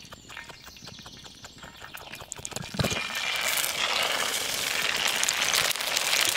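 Raw ostrich egg sliding into a hot pan and starting to sizzle loudly about three seconds in. Before that, only small scattered clicks and crackles.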